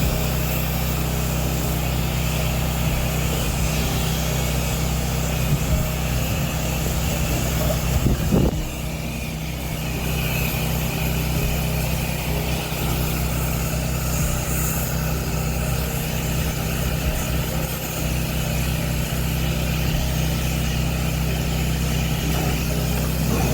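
Gasoline engine of a pressure-washing rig running steadily at constant speed, with a brief louder moment about eight seconds in.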